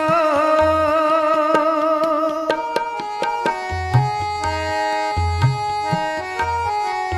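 Background music from a devotional song: a held, wavering sung note for the first couple of seconds, then an instrumental passage of tabla strokes under a stepping melody.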